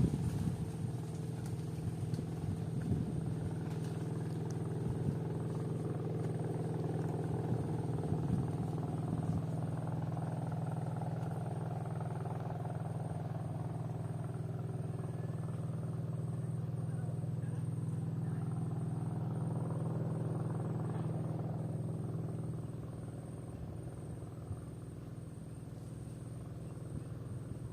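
A motor running steadily, a constant low hum that eases off about 22 seconds in.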